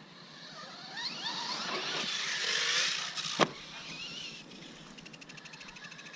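Arrma Kraton RC monster truck's brushless electric motor and drivetrain whining, rising in pitch as it accelerates away over dirt, with a single sharp knock about three and a half seconds in; after that the whine is weaker and steadier.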